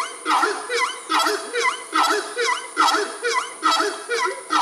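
A bird calling in a fast, even rhythm of short repeated notes, each with a quick dip in pitch, two to three a second.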